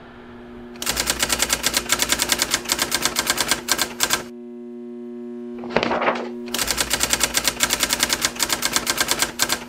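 Typewriter sound effect: two runs of rapid keystroke clicks as title text is typed out, with a brief swell of noise between them, over a low steady hum.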